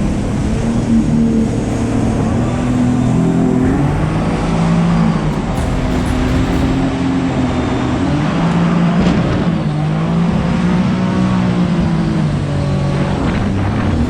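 Boat motor running under way, its pitch dipping and rising again several times as the throttle changes.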